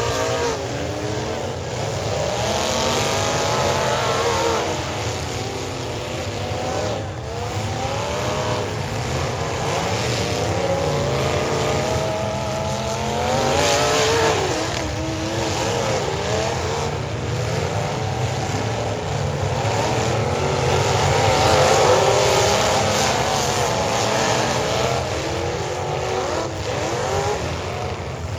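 Several demolition derby cars' engines revving and running together, their pitches rising and falling over one another above a steady low rumble.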